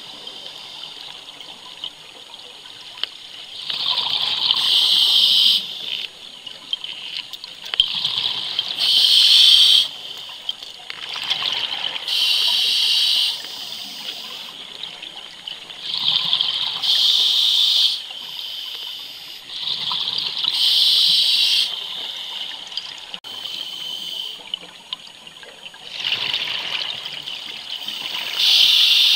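Scuba diver breathing through an open-circuit regulator: six breaths, each a loud rush of exhaled bubbles, with quieter hissing water between them.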